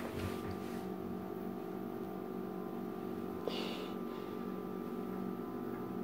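Steady electrical machine hum made of several even tones, with a click and a brief hiss about three and a half seconds in.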